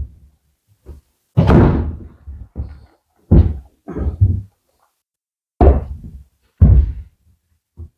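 A run of heavy, irregular knocks and thuds on loose OSB floor sheets, about seven in all, roughly a second apart.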